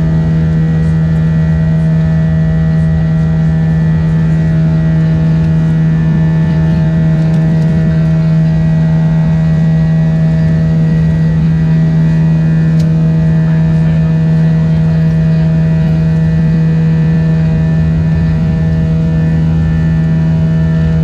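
Airbus A320's IAE V2500 turbofan engines heard from inside the passenger cabin: a loud, steady drone with a strong low hum and many steady tones stacked above it, holding the same pitch throughout.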